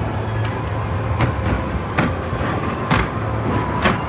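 Fireworks going off: a continuous rumble of bursts with four sharp bangs, about one a second.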